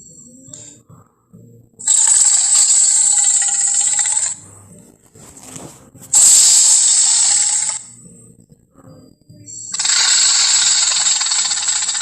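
Three long, harsh monster roars of about two seconds each, with short quiet gaps between them: roar sound effects for the character Sully.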